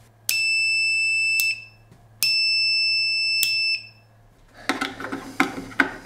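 Multimeter continuity beeper sounding twice, each a steady high beep of a little over a second, signalling that the rocker switch is passing current. A few sharp clicks and knocks of handling follow near the end.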